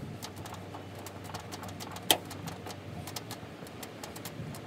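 Hand screwdriver turning a screw into an aluminium truck toolbox: a run of small clicks and scrapes, with one sharper metallic click about two seconds in, over a low steady hum.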